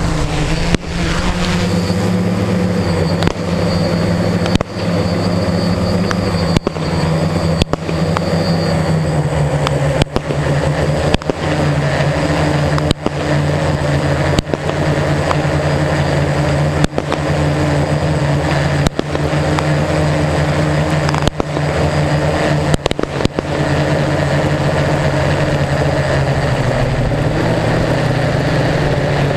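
Hexacopter's electric motors and propellers humming loudly in flight, a steady many-toned drone whose pitch steps down and up a few times as the throttle changes. Brief clicks cut through the hum every second or two.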